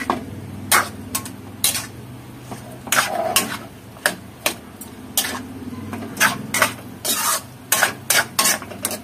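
Metal spatula scraping and knocking against a steel wok as chicken and tomatoes are stirred. The sharp knocks come irregularly, about twice a second, over a steady low hum.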